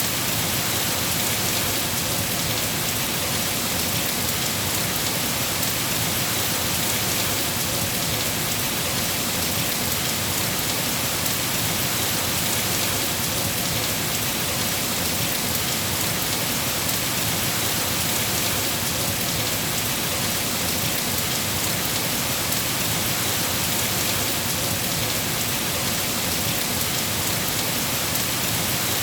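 Steady rain falling, an even hiss that keeps the same loudness throughout.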